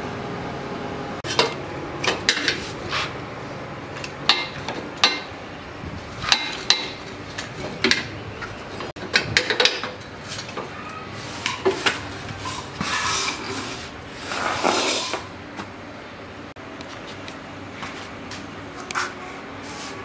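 Irregular metallic clinks and knocks of tools and steel parts being handled and fitted during assembly of a motorcycle rear axle, with two brief rasping scrapes about two-thirds of the way through.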